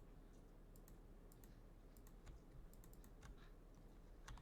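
Faint computer keyboard keys being pressed: short, sharp clicks at irregular intervals, a few every second, with no speech.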